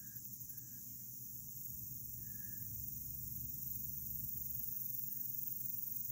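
Quiet outdoor ambience: a steady high insect drone, a low rumble, and a few faint short chirps about a second and a half apart.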